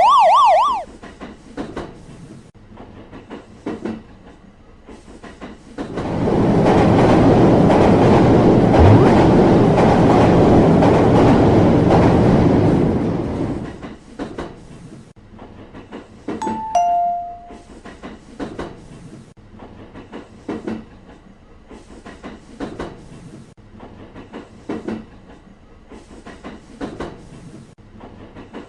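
Animated railway sound effects: a train rushes past for about eight seconds, with rhythmic wheel clacks running throughout. A two-note falling chime sounds partway through, and a warbling siren-like tone cuts off within the first second.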